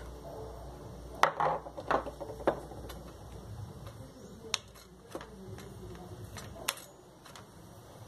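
Irregular sharp metallic clicks and taps as a screwdriver and pliers work at the spring and cylinder of a washing-machine suspension rod. A quick cluster of clicks comes in the first couple of seconds, then single clicks every second or so.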